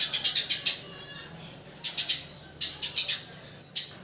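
Eurasian tree sparrows chirping: quick runs of short, high chirps in several bursts, with brief quiet gaps between them.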